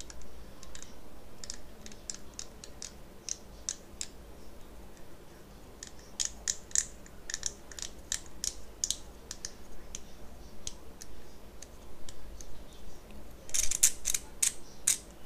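Ceramic pepper-grinder mechanism, freshly pressed into its aluminium housing, turned and worked by hand: irregular light clicks and ticks in short runs, with a denser, louder cluster near the end.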